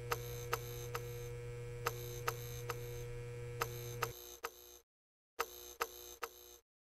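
End-screen sound effects: a low electrical hum with a steady higher tone, broken by sharp clicks in groups of two or three. The hum stops about four seconds in, and after a brief silence a few more clicks follow.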